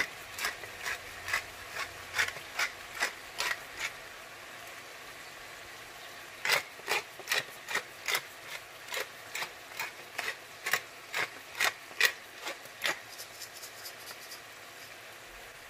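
Pepper mill grinding black pepper: a series of short rasping twists, about two or three a second, stopping for a couple of seconds partway through and then starting again.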